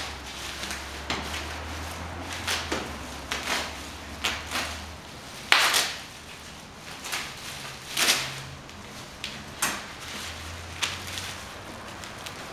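Plastic packaging rustling and crinkling as parts are unwrapped on a stainless steel table, with scattered knocks and clatters of items being handled. The loudest bursts come about five and a half and eight seconds in.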